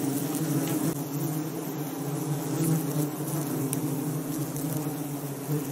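A swarm of horseflies buzzing in flight, a steady dense hum of many overlapping wings.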